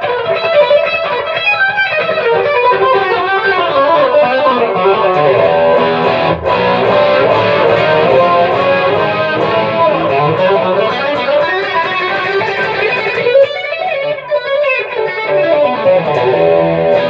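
Electric guitar played through a vintage Gallien-Krueger 250RL stereo amp head: a steady stream of quick picked notes and riffs.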